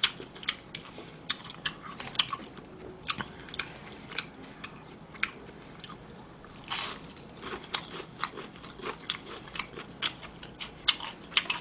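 Close-miked crunchy chewing of breaded deep-fried food: many short crisp crunches, a few each second, with a louder crunch about seven seconds in.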